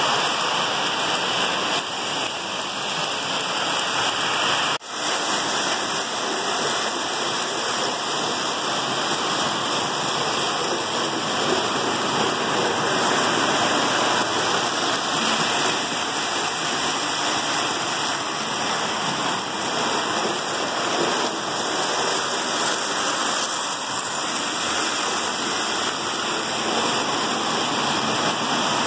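Steady whirring rumble of several Lionel O-gauge model trains running at once on their metal three-rail track. It cuts out for an instant about five seconds in.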